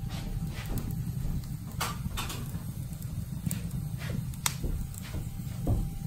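Wood fire crackling in an open brick fireplace: scattered sharp pops and snaps at irregular intervals over a steady low rumble.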